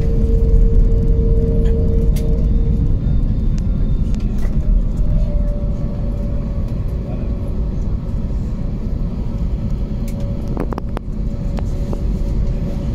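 Airbus A321neo cabin noise: a loud, low rumble that eases as the aircraft slows, with a steady engine tone that stops about three seconds in and a higher steady tone that comes in a couple of seconds later. A few sharp clicks near the end.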